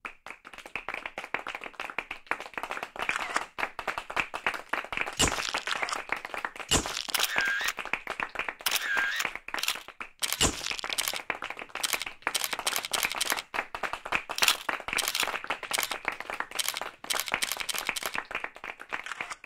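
Audience applauding: many hands clapping at once, beginning abruptly and going on steadily.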